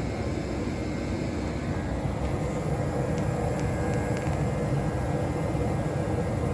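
Day and Night N80ESN 80% gas furnace running steadily, its blower moving air through the ductwork with a low rumble, with a few faint ticks about halfway.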